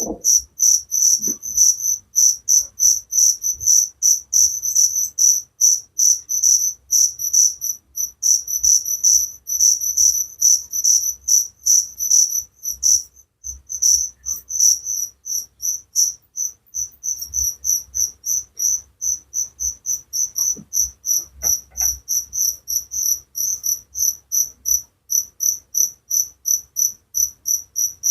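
A cricket chirping in a rapid, even pulse of high-pitched chirps, with a short break about halfway through.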